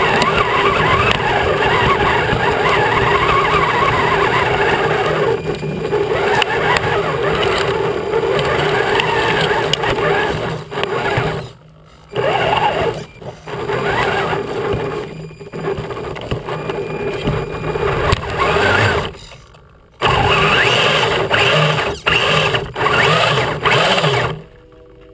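Electric RC truck's motor and drivetrain whining steadily as it drives over rough, grassy ground. In the second half the sound drops out suddenly several times, briefly each time, and then picks up again.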